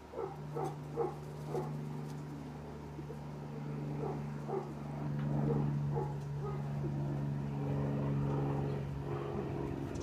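Short animal calls repeated several times, quickest in the first two seconds, over a steady low hum.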